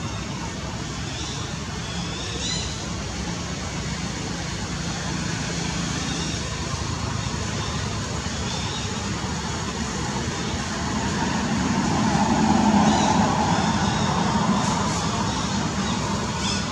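Steady outdoor background noise, with an engine sound that swells and then fades about twelve to fifteen seconds in, as a motor passes.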